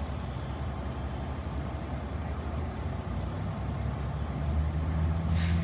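A vehicle engine running: a steady low hum that grows louder about four seconds in, with a brief hiss near the end.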